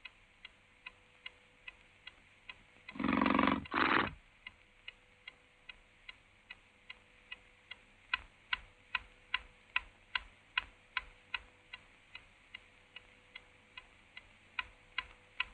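A clock ticking steadily, about two and a half ticks a second, the ticks growing louder about halfway through. About three seconds in, a louder noise lasting about a second covers the ticking.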